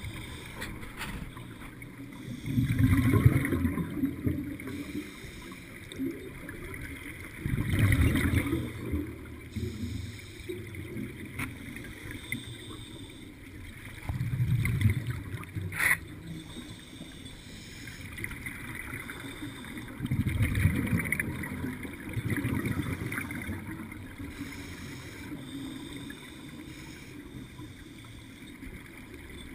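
Scuba divers' exhaled bubbles burbling from a regulator underwater, in bursts about every six seconds with the rhythm of breathing. There is a steady hiss between the bursts and a single sharp click about 16 seconds in.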